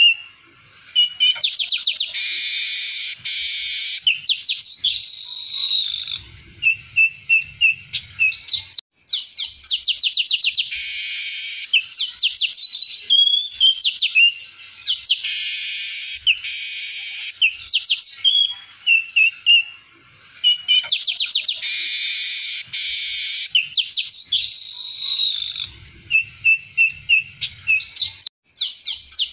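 Male streaked weaver singing: repeated phrases of rapid ticking runs, dense wheezy buzzes and short whistled glides, with short pauses between phrases.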